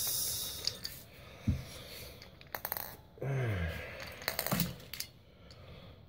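AA batteries and a flashlight's battery carrier clicking and clinking as the batteries are fitted in, with a soft knock about one and a half seconds in.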